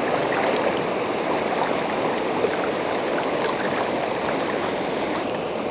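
River running high after a typhoon, its current rushing steadily with a dense, unbroken wash of water noise.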